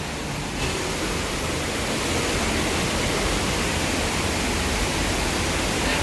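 Steady rush of falling water from a waterfall, an even hiss that grows louder about half a second in and then holds.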